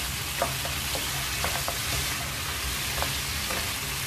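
Bone-in mutton pieces sizzling as they fry in a little oil in a nonstick wok, stirred with a wooden spoon that scrapes and knocks a few times against the pan. The meat is in its final light fry, in the fat it has released once its cooking water has dried off.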